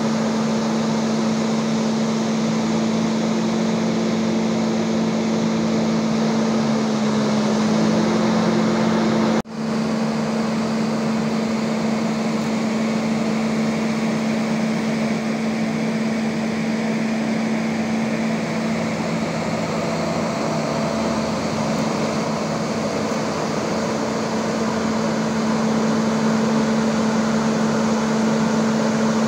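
Hitachi EX1200 excavator's Cummins QSK23 diesel engine running at a steady speed during its running test after a radiator replacement. It makes a constant drone with a strong steady hum, with one brief break about nine and a half seconds in.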